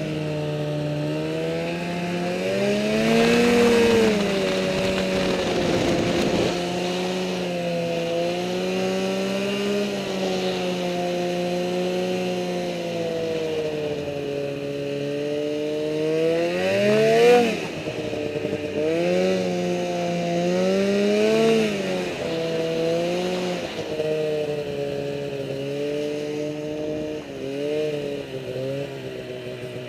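Snowmobile engine running under way, its pitch rising and falling as the throttle is worked. It revs up sharply a few seconds in, again about halfway through, and gives a quick string of short throttle blips near the end.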